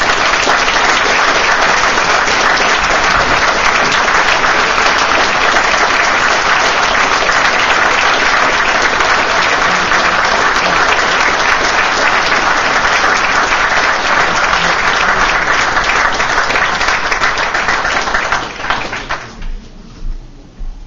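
Audience applauding, steady and full for most of the stretch, then dying away about nineteen seconds in.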